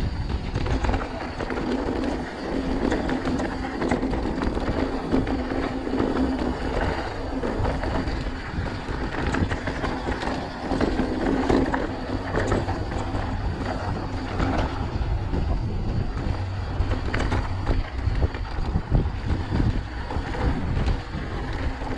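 Mountain bike rolling fast down a dry dirt and gravel track: steady tyre rumble with the bike rattling and knocking over the rough surface.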